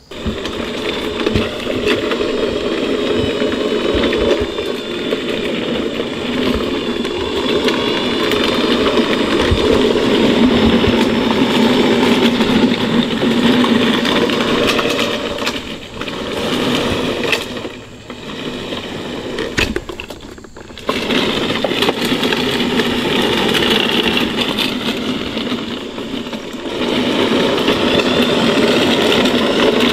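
A 1/6-scale Armortek Tiger I model driving on its metal link tracks: the 24-volt electric drive motors and gearing whir and the tracks clatter. The tracks are running slack, with a link too many on each side. The sound drops away briefly a few times past the middle as the tank stops and sets off again.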